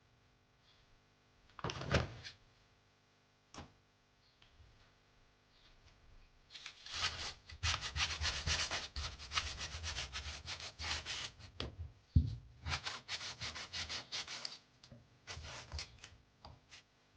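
Abrasive paper scrubbed back and forth in quick strokes over a sneaker's sole, scuffing off old glue. The rubbing starts about six seconds in after a few faint handling sounds, is broken near the middle by a single sharp knock, and then goes on in shorter spells.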